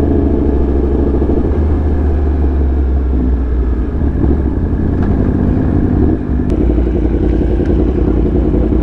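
A 2019 Yamaha R1's crossplane inline-four, fitted with an SC Project exhaust, running steadily while riding at speed, with heavy wind rumble on the helmet microphone. There is a brief drop in level about six seconds in.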